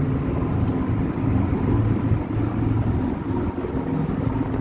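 A steady low mechanical rumble, like engines or traffic, with two faint high ticks about a second in and near the end.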